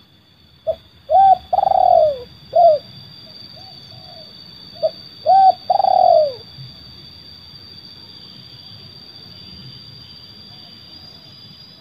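Spotted dove (terkukur) cooing: two phrases about four seconds apart, each a few short coos ending in a longer, falling coo. It is the call pattern Malay dove keepers call 'seladang gantung'.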